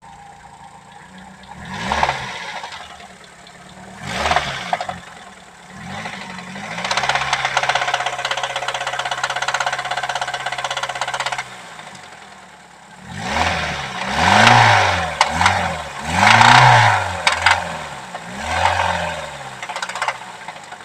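Nissan SR20DE 2.0-litre inline-four engine being revved by hand, knocking. There are a few single throttle blips, then a steady held rev for a few seconds, then a quick run of blips. The knock is there at start-up and after warm-up, and the owner suspects a worn bearing shell.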